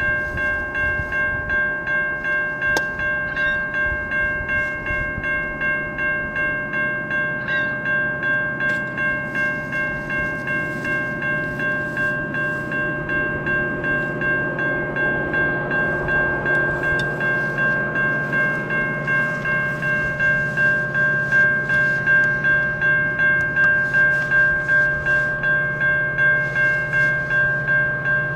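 Railway level-crossing bell ringing steadily in an even repeated rhythm while the gates are down. Under it, the low rumble of an approaching diesel freight train builds from about halfway and grows louder toward the end.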